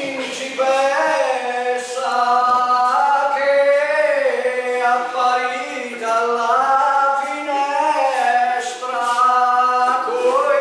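A group of children's voices singing long held notes together, sliding up and down in pitch from one note to the next as in a breathing-and-voice exercise.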